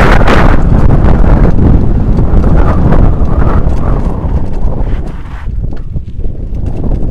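Bicycle and handlebar-mounted camera rattling and knocking as the bike rides over a rutted dirt track, with wind buffeting the microphone. The noise eases about five seconds in.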